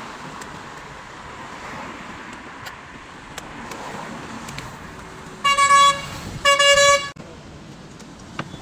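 Vehicle horn honking twice, each honk a single steady note about half a second long, the second slightly longer, over steady passing road traffic.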